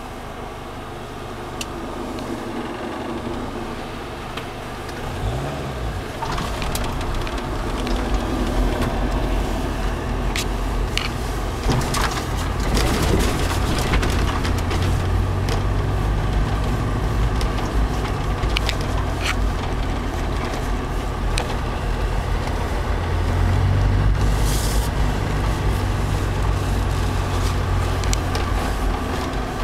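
Steyr-Puch G-class off-roader engine running as it drives, a low rumble that grows louder about six seconds in, over a steady rush of wind and surf, with scattered sharp knocks.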